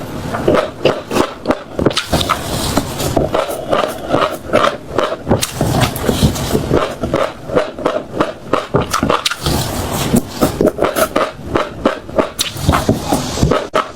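Close-miked chewing: seeds being bitten and crushed in the mouth, a dense, irregular run of crisp crunches and crackles.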